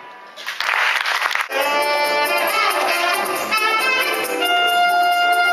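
Live stage music: the previous tune dies away, a short hissing swell of noise lasts about a second, then a saxophone starts a melody over the band, settling on a long held note near the end.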